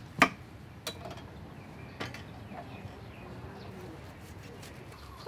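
A kitchen knife cutting through a head of broccoli and knocking on the board beneath: one sharp knock just after the start, then lighter ones about one and two seconds in. Birds call faintly in the background.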